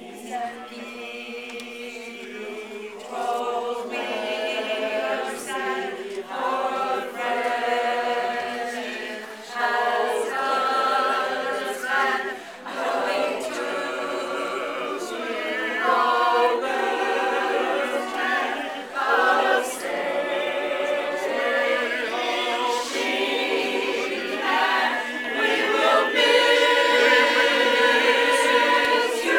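A choir of mostly women singing together, starting softly and swelling to its loudest near the end.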